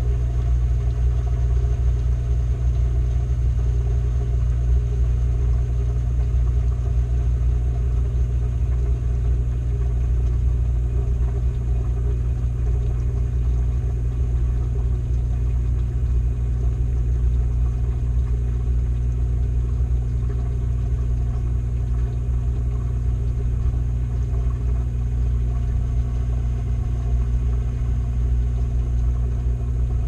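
Washing machine running with a load of clothes, heard from inside the drum: a steady, loud low rumble with a constant hum.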